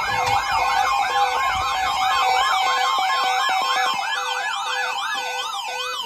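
Electronic siren sounding a fast up-and-down wail, about three cycles a second, over a steady tone. It changes to a wider, slower wail right at the end.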